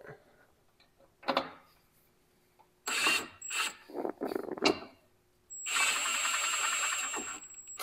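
Power tool with an inch-and-an-eighth socket screwing a mini skid steer's track tensioner in, retracting it. It runs in a few short bursts, then steadily for about two seconds near the end.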